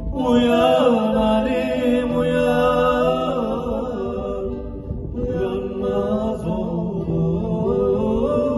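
A man singing a Turkish folk song (türkü) in long held, bending notes, with acoustic guitar accompaniment, amplified through a PA; the voice comes in right at the start and pauses briefly about halfway through.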